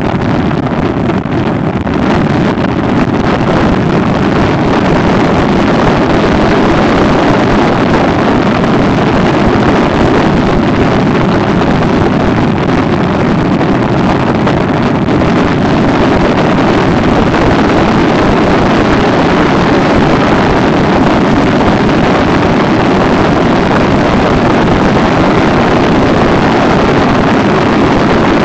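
Steady, loud wind rush over the microphone of a Honda ST1300 Pan European motorcycle cruising at highway speed, with the drone of its V4 engine underneath.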